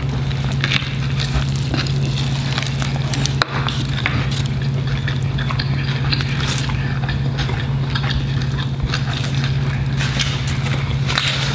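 Close-miked eating sounds: chewing and crunching of burgers and fried food, heard as many small wet clicks and crackles, over a steady low hum.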